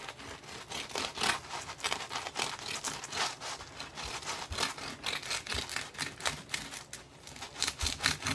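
A knife sawing through a crusty baguette, the crisp crust crackling in many small irregular snaps, with a few dull knocks along the way.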